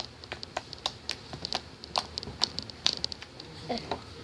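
Hands squeezing and kneading fluffy slime made from glue, Tide and shaving foam, giving off irregular wet clicks and pops several times a second.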